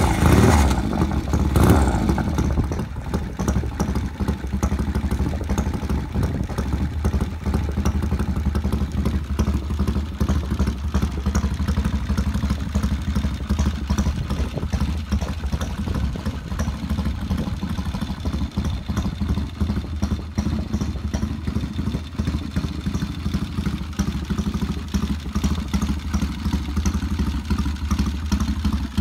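A 1972 Triumph TR6 Trophy's 650 cc parallel-twin engine fires up on the kick-start. It surges twice in the first couple of seconds, then settles into a steady idle.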